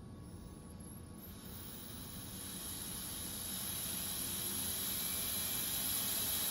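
Air hissing from a Philips Respironics V60 BiPAP ventilator during its exhalation port test. The circuit outlet is blocked by a finger, so air escapes through the open exhalation valve. The hiss grows steadily louder from about a second in.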